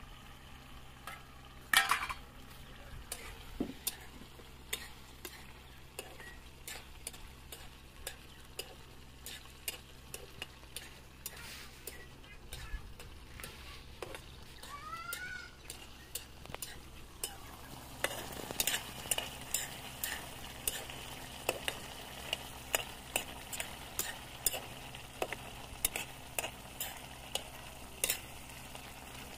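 A metal spoon stirring and scraping thick pork curry in a metal pan, clinking against the sides over a low sizzle from the frying curry. There is one loud metal clank about two seconds in, and from about two-thirds of the way through the stirring gets quicker and louder.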